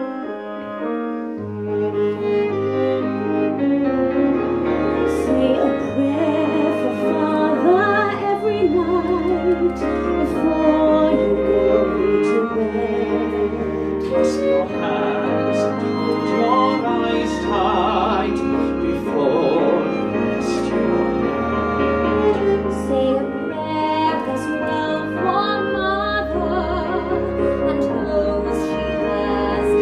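A slow musical-theatre ballad performed live: a woman singing with vibrato, accompanied by piano and long held double-bass notes.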